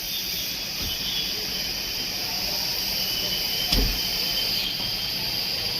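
Steady hiss, with a single low thump about two-thirds of the way through.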